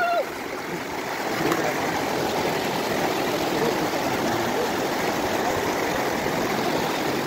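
Muddy floodwater rushing fast across a submerged road in a steady, even roar of moving water.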